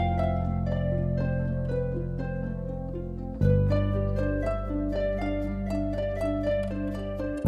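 Instrumental music: a quick run of plucked notes over held low chords, with the chord changing about halfway through.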